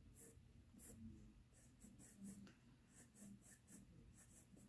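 Faint scratching of a Prismacolor colored pencil on paper in quick short strokes, a few a second, as layers are shaded and blended in.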